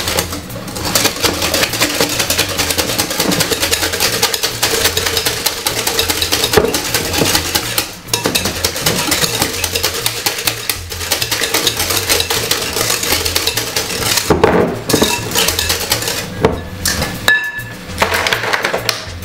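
A utensil beating cake batter of creamed butter, sugar and egg by hand in a mixing bowl, making a fast, steady clatter of clicks against the bowl, with brief pauses about eight and eleven seconds in.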